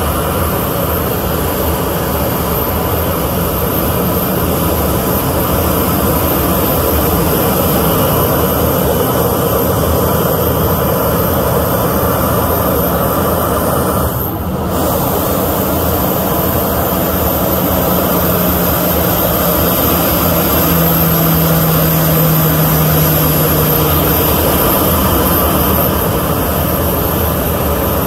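Jet engines of a taxiing Boeing 737 airliner running at low power: a steady loud rush with a high-pitched whine on top, broken briefly about halfway through.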